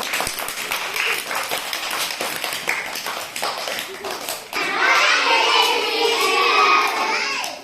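A group of children clapping fast and together, then shouting in unison in high voices from about four and a half seconds in.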